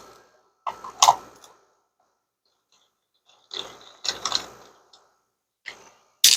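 Small metal-and-plastic pin header strips clicking and rattling as they are handled, in three short bursts with quiet gaps between.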